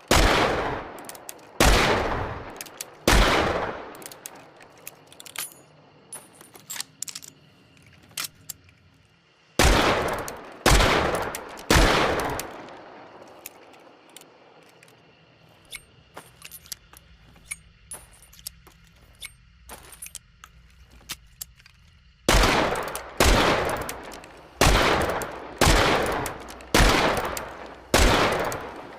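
Smith & Wesson Model 3 Schofield single-action revolver firing: three shots about a second and a half apart, three more about ten seconds in, then six about a second apart near the end, each with a ringing tail. Faint small clicks fall in the quieter gaps between the groups.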